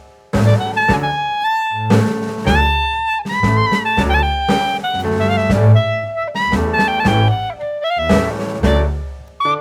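Background music: a jazz tune with saxophone or brass playing a melody over bass and drums.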